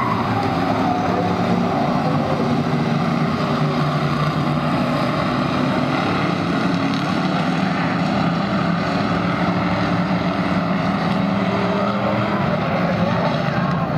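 A field of stock cars running laps together on an oval track, their engines blending into one steady, loud mass, with pitch rising and falling as individual cars pass.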